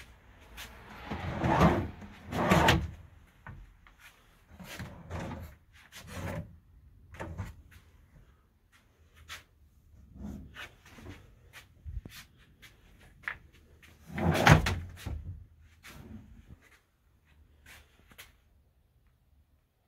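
Wooden dresser drawers sliding open and shut on drawer slides several times, with small knocks and clicks between strokes. The loudest strokes come as a pair near the start and once more about two-thirds of the way through.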